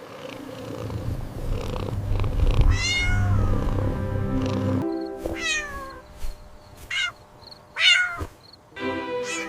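A cat meowing about four times, each short call falling in pitch, over soft background music; a low rumble sits under the music in the first half.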